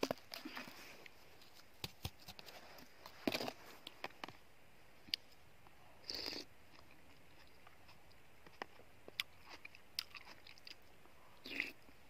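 A person eating cherries off a spoon close to the microphone, with faint chewing and mouth sounds. There are scattered light clicks and three short slurping, sucking noises as the spoon reaches the lips.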